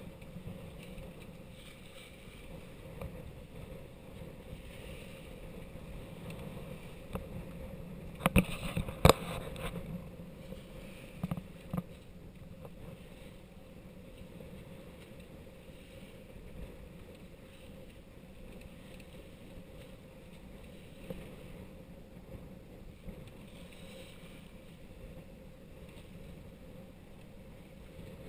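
Water rushing along the hull of a sailing yacht moving through a choppy sea, a steady rush of noise. A few sharp knocks stand out about eight to eleven seconds in.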